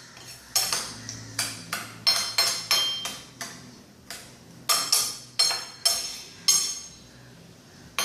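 A utensil clinking repeatedly against a mortar while a salad dressing is stirred in it: sharp, ringing clinks about twice a second that stop about seven seconds in.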